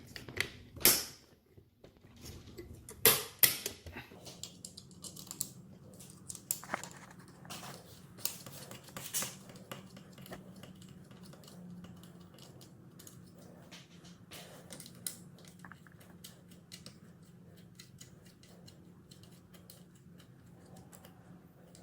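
Metal hand tools clinking and tapping on bolts and the opener's metal mounting as a socket and wrench tighten them: irregular sharp clicks, thicker in the first half and sparser later, over a faint steady low hum.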